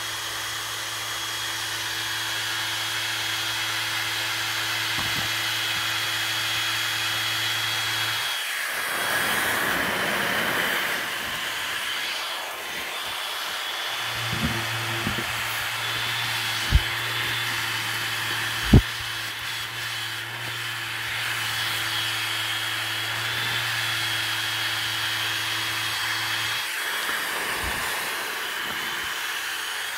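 Small battery-powered fan in the base of a mini inflatable tube man, running with a steady motor hum and rush of air. It cuts out about eight seconds in, comes back a few seconds later and stops again near the end. Two sharp knocks come in the middle.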